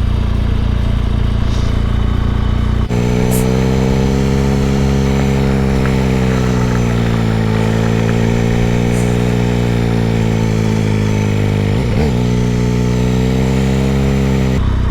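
Motorcycle engine running steadily while riding along a road, its pitch sagging and rising slightly with the throttle, with a brief dip about twelve seconds in.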